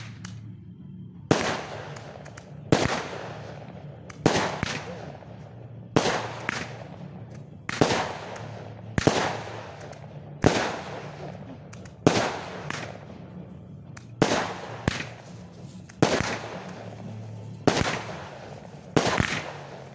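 Fireworks display: about a dozen sharp bangs come one after another, roughly every second and a half, each fading off over about a second as the shells burst.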